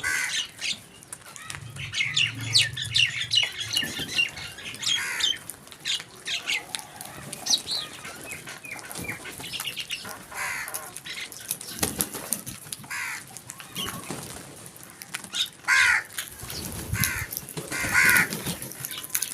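A flock of crows calling: many overlapping calls crowd the first few seconds, then single calls come spaced apart, two of the loudest near the end.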